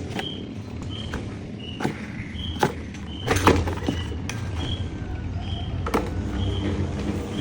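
Electric fan running with a steady low motor hum that grows stronger about three seconds in. A short high chirp repeats about every 0.7 seconds, and a few sharp clicks are heard.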